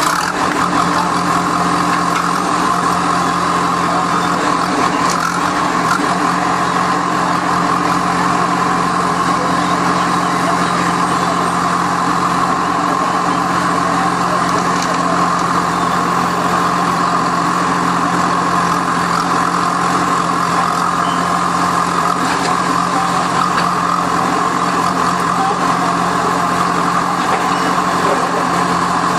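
Heavy construction-machinery diesel engine running steadily, with a constant whine above the engine note.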